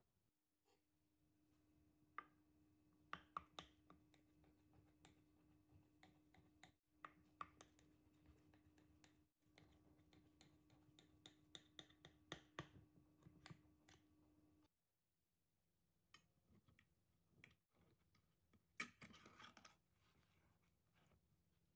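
Near silence with faint clicks and taps of a utensil on a glass baking dish, and a brief scrape about 19 seconds in as a metal spatula lifts out a piece of rice cake. A faint steady hum runs under the first two-thirds and then stops.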